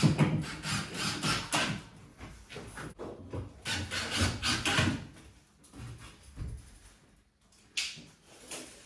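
Timber being rubbed and scraped by hand in a series of irregular strokes, with short pauses between them.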